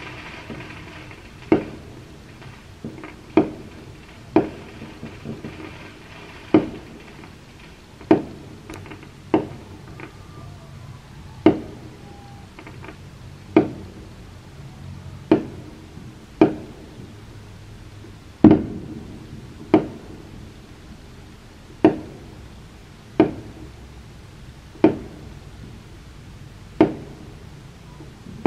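Aerial fireworks bursting: a string of sharp bangs about one to two seconds apart, each with a short echoing tail. They are not that loud, and the loudest comes about two-thirds of the way through.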